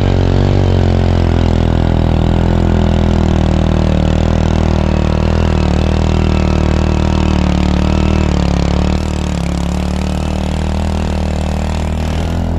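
Motorcycle engine running steadily while being ridden, its note dipping slightly in pitch a few times over a steady hiss, with the level dropping somewhat about nine seconds in.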